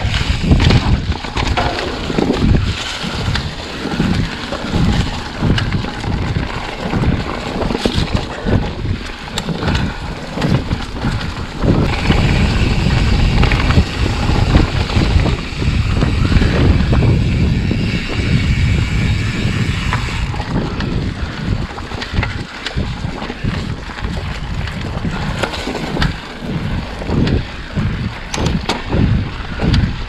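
Wind buffeting the microphone while a Trek Fuel EX 8 mountain bike is ridden along a dirt trail, with tyre noise and short clattering knocks over bumps. A brighter hiss comes in for several seconds around the middle.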